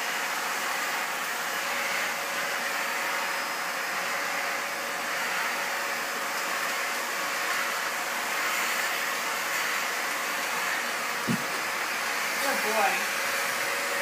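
Vacuum cleaner running steadily, a rush of air with a constant hum, with a short knock about eleven seconds in.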